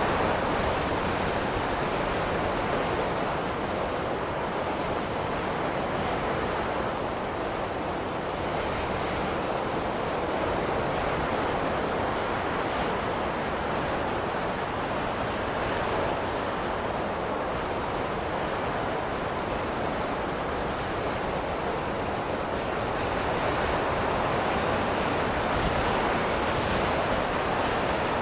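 Steady rushing wind, a continuous even noise that dips slightly early on and swells a little louder near the end.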